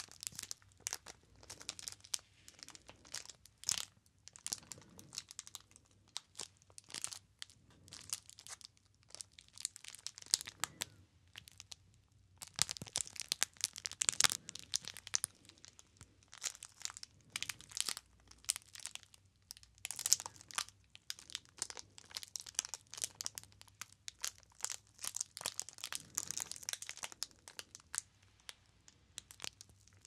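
Clear plastic wrapper on a bar of soap crinkled and rubbed between the fingers close to the microphone: irregular crackling in clusters, loudest about halfway through.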